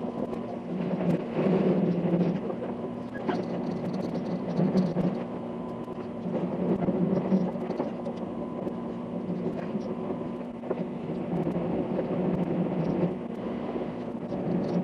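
Azusa limited express train running, a steady rumbling running noise that swells and eases every second or two, with a faint steady whir.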